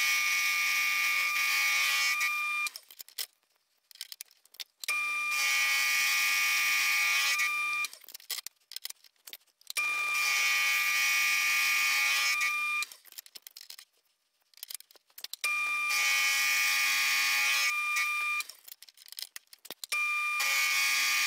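End mill on a mill-drill taking a deep flat cut in cold-rolled steel round stock, a steady ringing whine. The whine comes in stretches of three to four seconds, about five times, broken by short pauses with small clicks.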